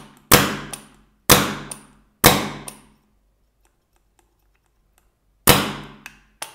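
Planet Eclipse GMEK mechanical paintball marker dry-fired on air, each trigger pull giving a sharp pop with a short metallic ring. Three shots about a second apart, a pause, then another near the end.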